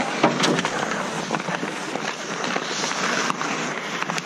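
Ice hockey skates scraping and carving on the ice, with frequent irregular sharp clacks of sticks and puck.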